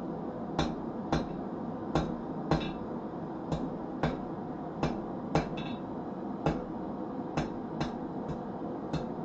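Hand hammer striking hot steel while forging a nail. About fourteen sharp, ringing blows at an uneven pace, roughly one every half second to second, over a steady background hum.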